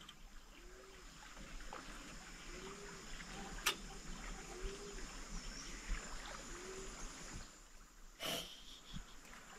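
Canoe being paddled quietly: faint water trickling and lapping from the paddle, with a faint short rising-and-falling tone about every two seconds, a sharp click near the middle and a brief rush of noise near the end.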